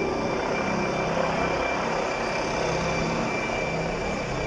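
Helicopter flying overhead: a steady rotor and engine noise with a thin, steady high whine over it.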